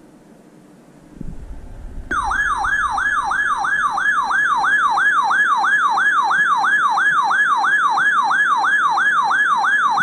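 A low thump about a second in, then an Emergency Alert System attention tone: a loud, siren-like electronic tone that sweeps up and down about three times a second, announcing a severe thunderstorm warning.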